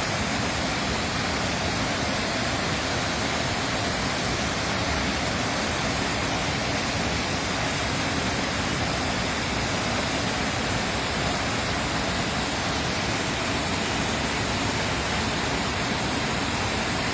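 Running water flowing with a steady, even rush that does not change.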